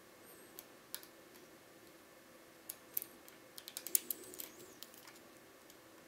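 Small, sharp metallic clicks of a hook pick lifting the pin-tumblers, anti-pick pins among them, inside a GEGE pExtra euro cylinder. A few single clicks come first, then a quick run of clicks about four seconds in.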